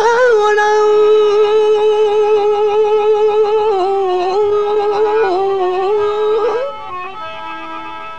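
Sindhi folk song: a male singer holds one long high note, steady at first and then wavering. The note fades out about seven seconds in, leaving softer, lower instrumental accompaniment.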